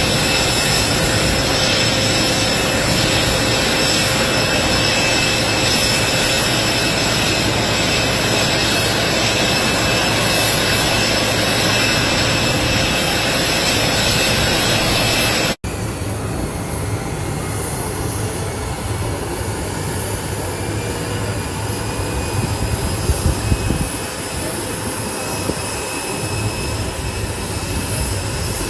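Steady engine noise of the jet-aircraft kind, with a few high, even whine tones over it, cut off suddenly about halfway through and followed by a second, somewhat quieter stretch of similar steady engine noise.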